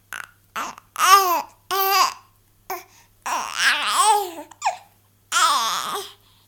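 A baby babbling in a string of high-pitched voiced bursts with short gaps, some of them only brief yelps, while it has the hiccups.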